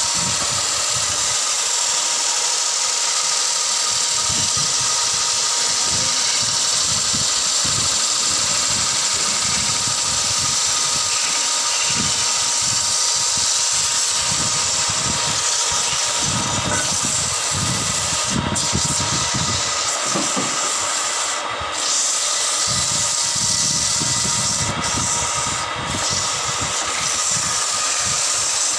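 Wood lathe running steadily with a long wooden table-leg blank spinning as it is worked, a continuous hiss over a faint steady whine. The hiss dips briefly a few times in the second half.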